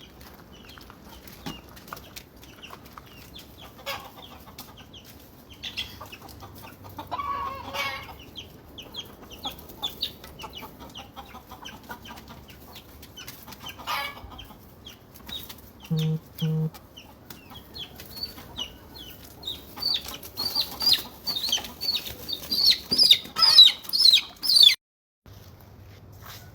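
Chickens clucking, with calls repeating more thickly and loudly in the last few seconds. Two short low blips sound about two-thirds of the way through.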